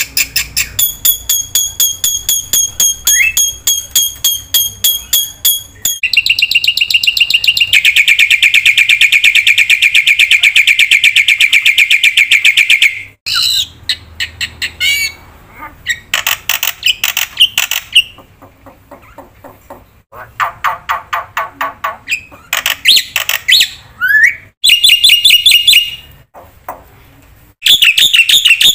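Black-winged myna (jalak putih) singing loudly in rapid runs of repeated notes. About six seconds in, a long unbroken trill lasts some seven seconds, then shorter, varied bursts follow with brief pauses between them.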